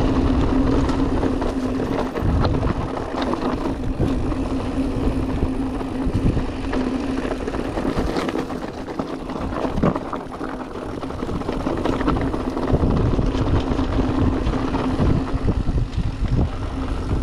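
Electric mountain bike riding over a trail: a steady motor whine under the low rumble of wind on the microphone and the knobby Wolfpack Enduro tyres rolling over rough ground, with occasional knocks and rattles from the bike.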